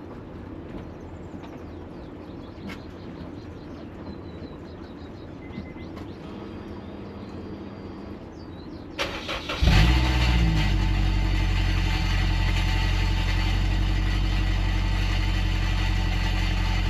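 Turbocharged Honda S2000's four-cylinder engine cranking briefly and catching about nine or ten seconds in, then idling steadily through a J2 dual-tip exhaust whose muffler baffle has broken loose inside. Before it starts there is only quiet background with a few faint high chirps.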